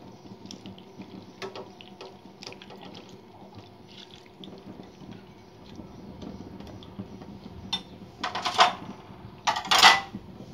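Cooked macaroni being scraped from a glass bowl with a silicone spatula into an aluminium pan of white sauce: soft scrapes, wet slides and small knocks, then two louder bursts of scraping and clatter near the end.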